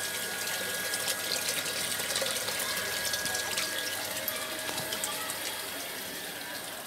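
Water splashing and trickling steadily into an aquaponics fish tank. A faint steady tone sits under the splashing, and the sound grows a little softer in the second half.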